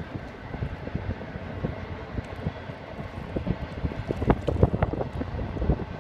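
Wind buffeting the microphone: an uneven, gusty low rumble that grows stronger over the last couple of seconds.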